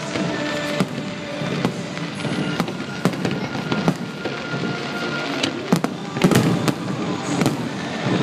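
Aerial firework shells bursting one after another, sharp bangs and crackle, with a cluster of louder bangs about six seconds in, over music playing.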